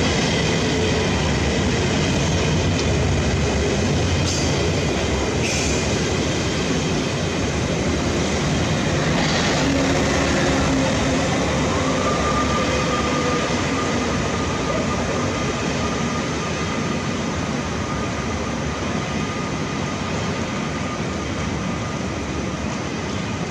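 Electric train running along the platform with a continuous rumble of wheels on rail. A motor whine slides up in pitch about halfway through and then holds steady, and the sound slowly eases off toward the end.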